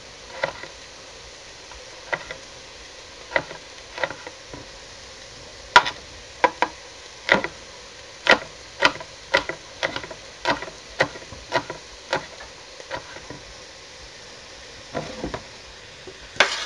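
Kitchen knife chopping a chilli on a wooden chopping board: a run of sharp knocks, scattered at first and then about two a second through the middle, thinning out near the end.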